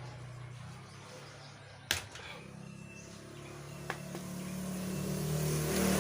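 Hand tool clicking sharply against the amplifier's circuit board as rusted parts are pulled out, once about two seconds in and more faintly two seconds later, over a low drone that grows louder near the end.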